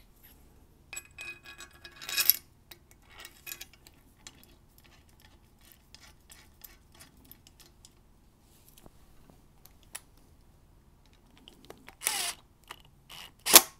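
Light clicks and taps of a bolt, spacers and a Delrin puck being fitted together by hand, then, near the end, a louder scrape and a sharp knock as the parts meet the stainless steel crash bar.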